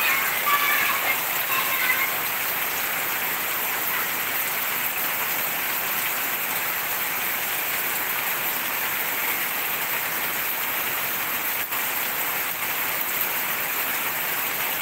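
Heavy tropical rain falling steadily on the street and leaves: a dense, even hiss.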